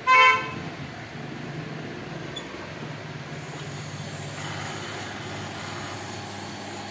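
Bajaj air cooler running after repair: a steady low motor hum, with a hiss joining about four seconds in as water from the submersible pump begins to run through the honeycomb pad. A short, loud squeak sounds right at the start.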